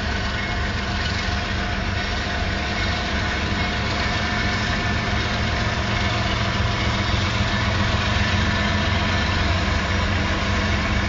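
Union Pacific diesel locomotives running steadily, a deep engine drone with a steady hum that grows slowly louder.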